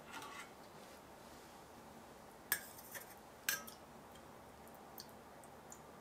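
A metal mesh strainer clinking against a stainless steel saucepan while scooping a cake out of syrup: two sharp clinks about a second apart near the middle, with a few lighter taps after.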